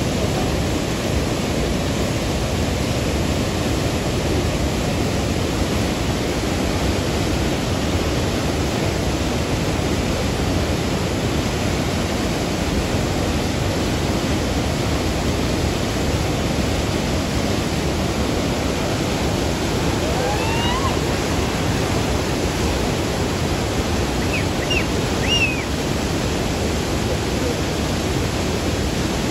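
Steady roar of Niagara Falls and its river rapids: an even, unbroken rush of water. A few faint, short rising whistles come through about two-thirds of the way in.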